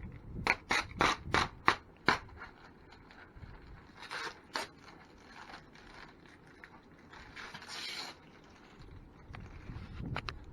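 Protective plastic film being peeled off a PC part: a few sharp clicks, then two longer rasping scrapes as the sticky film comes away.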